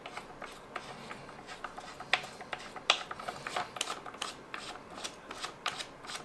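Handling noise from the front end of a Little Moon ARP9 gel ball blaster: many small, irregular clicks and rubs as fingers grip and turn the nylon handguard and flash hider.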